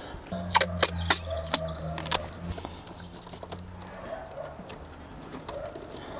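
Sharp plastic clicks and knocks of a wiring connector being pushed back into its socket and the cabling handled, bunched in the first two seconds or so. Under them runs a low steady hum that fades out after about four seconds.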